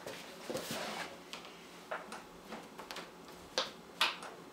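A few faint, scattered clicks and taps from hands on a small CRT television and its front controls, two of them clearer near the end. The set itself stays silent: it does not power on.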